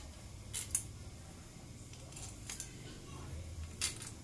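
Small metal engine parts clicking and clinking as they are handled at a motorcycle crankcase: two sharp clicks close together about half a second in, two more near the middle, and a louder one near the end.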